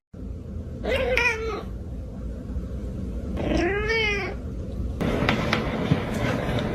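A cat meowing twice in long drawn-out calls, the first about a second in and the second, which rises and falls in pitch, about three and a half seconds in. A steady background noise with a few sharp clicks follows.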